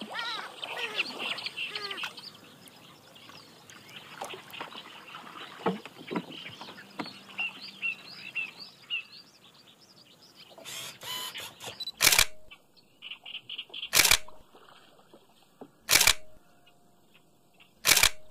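Birds chirping and calling in a reed marsh, then a DSLR camera's shutter firing in short rapid bursts, four times about two seconds apart in the second half.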